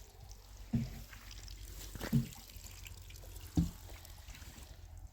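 Water splashing and dripping while something is washed, with three short splashes about a second and a half apart.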